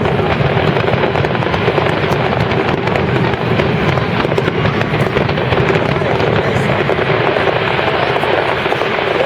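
Fireworks display going off continuously: a dense, steady barrage of crackling bangs, with crowd voices mixed in.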